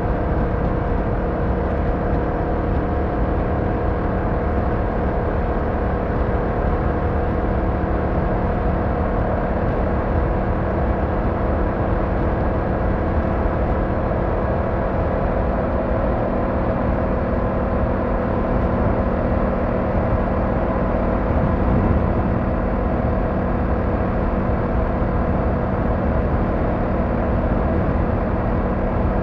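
Car driving at a steady speed: a constant engine hum with tyre and road noise, holding the same pitch throughout with no revving or gear changes.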